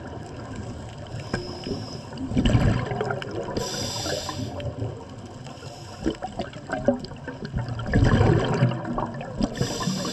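Scuba breathing through a regulator, recorded underwater: twice, a surge of exhaled bubbles gurgling, each followed about a second later by the hiss of an inhalation through the regulator.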